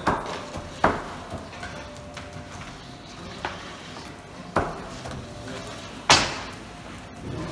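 Long-handled wooden oven peels knocking and clattering against a stone counter and oven mouth: about five sharp, irregular knocks, the loudest about six seconds in.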